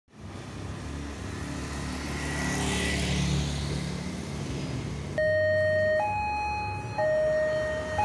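A motorcycle engine runs as it passes over the crossing. About five seconds in, a railway level crossing's electronic warning siren starts suddenly, alternating between two tones, each held about a second, to warn of an approaching train.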